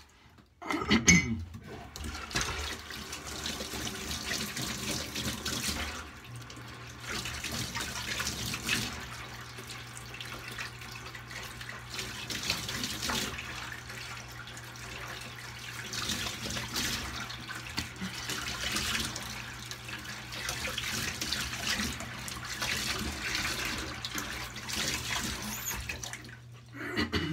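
Bathroom tap running into a sink while handfuls of water are splashed onto the face, rinsing off shaving lather after the shave; the splashing comes in uneven surges and the water stops shortly before the end.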